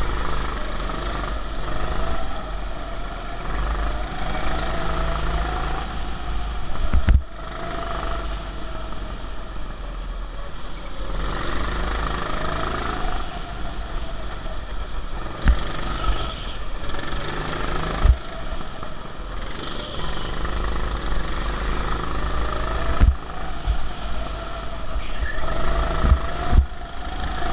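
Go-kart heard from on board while lapping, its motor's pitch rising and falling with speed through the corners over a steady low rumble. Several sharp knocks are heard along the way.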